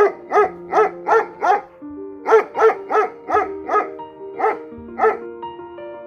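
A dog barking repeatedly in quick runs of short barks, about three a second, over background music.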